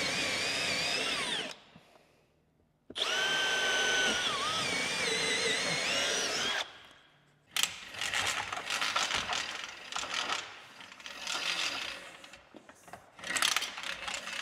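Cordless drill-driver driving screws into the wall: a brief run, then after a pause a longer run of about four seconds, its motor whine rising and falling in pitch with trigger and load. From about halfway through, a retractable air hose reel clatters and clicks irregularly as its hose is pulled out.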